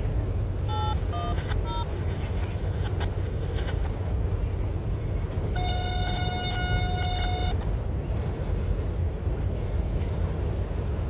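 Freight train of tank cars and boxcars rolling across a steel truss railroad bridge, a steady low rumble. A few brief high squeaks come about a second in, and a train horn sounds one blast of about two seconds a little past the middle.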